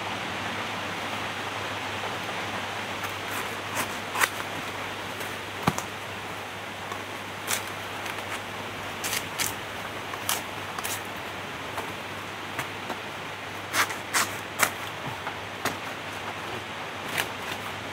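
Knife and hands cutting and snapping off young bamboo shoots at the base of a clump: scattered sharp snaps and clicks, sometimes two or three close together, over a steady hiss.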